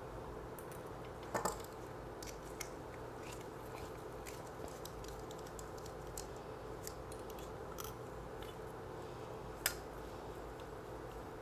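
Scattered faint clicks and light metal ticks of small mounting screws and a hand driver working a red dot sight onto a pistol slide, with a sharper click about a second in and a louder one near the end, over a steady low hum. The screws are not going in properly.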